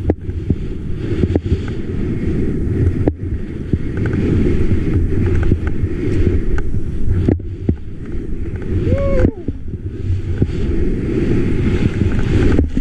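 Wind buffeting an action camera's microphone while skiing fast through deep powder, a dense low rumble with the hiss of skis cutting through the snow. The rumble drops out briefly a few times between turns.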